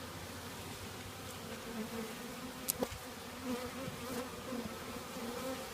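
A mass of honeybees buzzing, a steady wavering hum. They are a freshly installed package, which the beekeeper takes to be angry with him. A single sharp click comes a little under three seconds in.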